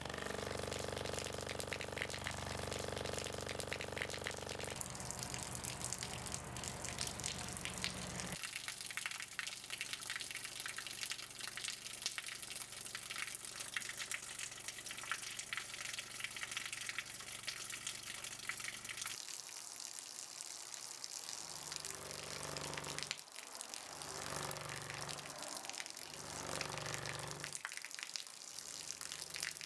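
Running water, a steady gushing hiss like a tap or hose stream. Beneath it, low steady tones from a speaker change pitch abruptly a few times; near the end they pulse on and off about every second and a half.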